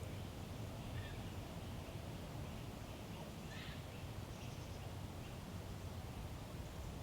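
Woodland ambience: a few short, faint bird calls over a steady low rumble.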